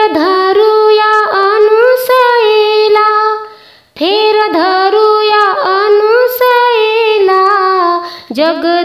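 A high female voice singing a Marathi devotional bhajan to Goddess Durga, unaccompanied, in long gliding phrases. The voice breaks off about four seconds in, takes up another phrase, and starts a third near the end.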